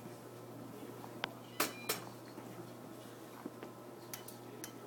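A few sharp, irregularly spaced clicks and taps over a steady low electrical hum. Three come close together about a second and a half in, and two fainter ones near the end.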